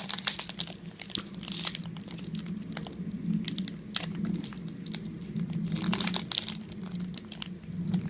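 Plastic wrapper of a football card pack being handled and worked open, with irregular crinkling and crackling throughout.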